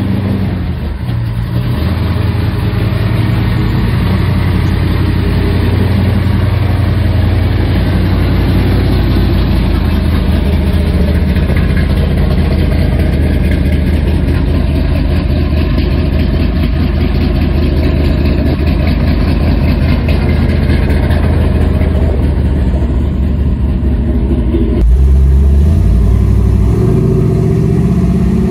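1968 Camaro's 496 cubic-inch big-block V8 idling with a steady, deep exhaust rumble. About 25 seconds in, heard from inside the cabin, the engine accelerates and its pitch rises.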